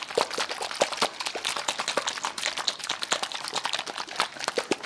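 Plastic slime shaker holding water and slime powder, shaken hard by hand to mix the slime: a quick, irregular run of clicks and knocks.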